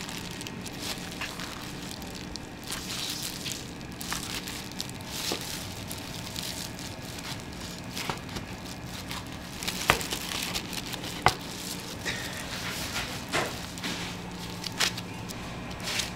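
Plastic film crinkling and rustling as a wooden paddle is pressed and slid over the wrap covering a sheet of mugwort rice-cake dough, with scattered sharp clicks, the loudest two about ten and eleven seconds in. A steady low hum runs beneath.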